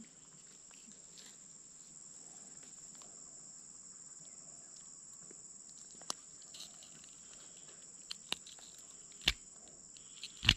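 Steady high-pitched insect chorus, like crickets, droning without a break. Over it come a few sharp clicks and knocks from about six seconds in, the loudest two near the end, from the fish and knife being handled.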